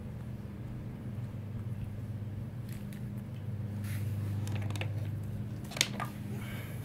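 Light clicks and small handling noises of RC differential parts being moved about by hand, over a steady low hum; the sharpest click comes near the end.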